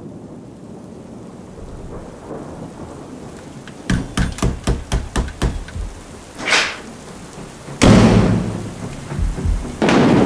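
Thunderstorm: rain with thunder. A quick run of about eight sharp cracks comes about four seconds in, a loud thunderclap about eight seconds in dies away, and another loud clap starts near the end.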